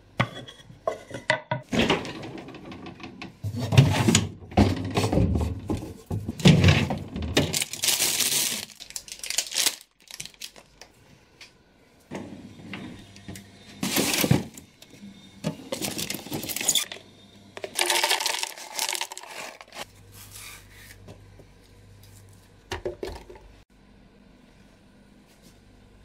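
Kitchen handling sounds: dishes, utensils and a wooden cutting board clattering and knocking in a string of separate bouts, with a freezer drawer pulled open about halfway through.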